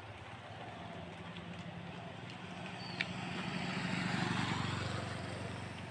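A motor vehicle passing by: a low engine hum with road noise that swells to a peak about four seconds in, then fades. A single sharp click about three seconds in.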